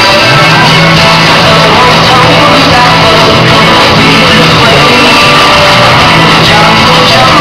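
Loud recorded music with singing for a dance routine, carried by a steady, sustained bass line.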